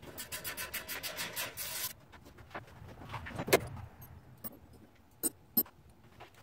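Metal parts and tools being handled on a go-kart-style trike frame: rapid, even clicking for about two seconds, then a single loud clunk about halfway through and a couple of sharp metallic clicks after it.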